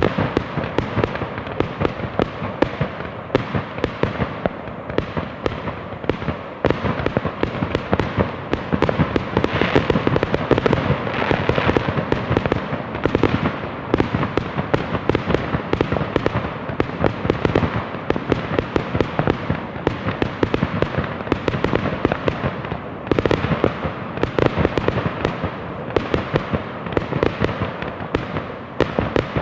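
Fireworks going off in a dense, continuous barrage, many bangs and crackles every second.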